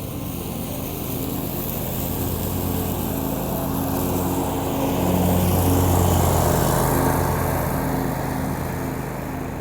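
Belt-driven Skag zero-turn mower running under load as it cuts thick grass. It grows louder to a peak a little past the middle as it comes close, then eases off. The engine holds its speed without bogging down.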